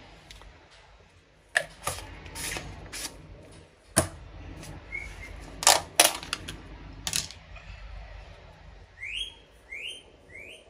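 Scattered sharp clicks and knocks, about eight of them, from spice containers and a measuring spoon being handled while spices are added. Near the end come three short rising chirps, about two-thirds of a second apart.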